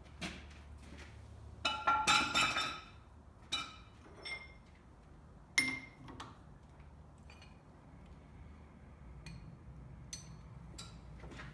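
Metal tools and parts being handled on a workbench: a quick cluster of clanks and ringing clinks, then a few single sharp clinks, the loudest about halfway through, over a steady low hum.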